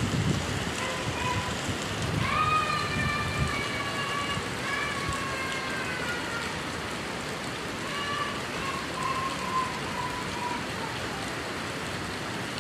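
Steady rain hiss. Over it come three drawn-out, high pitched calls, each one to two seconds long and sliding slightly down in pitch.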